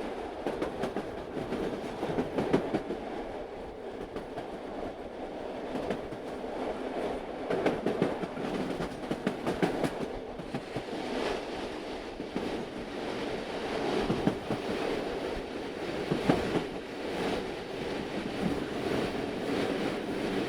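Old train running on the rails: a continuous rumble of the railroad cars with the wheels clattering over the track in frequent irregular clicks, rising and falling in loudness.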